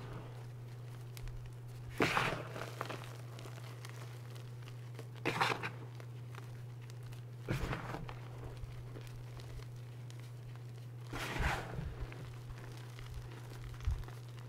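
Hands squeezing and crumbling reformed gym chalk, with crunchy, gritty rustles in about five short bursts. A steady low hum runs underneath.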